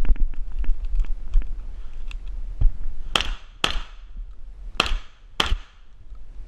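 Winchester SX4 semi-automatic shotgun firing four loud shots in two quick pairs, each ringing out briefly, about three seconds in, after a run of fainter sharp clicks and knocks.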